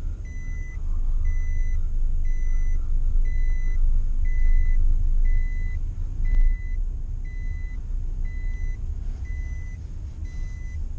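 Inside a moving Nissan car: a dashboard warning chime beeps steadily about once a second, each beep about half a second long, over the engine and road rumble. There is a single thump about six seconds in.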